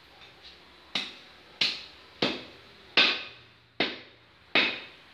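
A machete chopping through raw goat meat and bone into a wooden chopping block: six hard chops about two-thirds of a second apart, each with a short ring-out, after two light taps.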